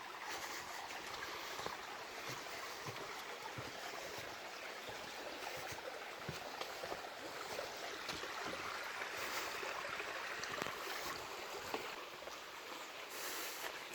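A stream running steadily over stones, a constant rush of water.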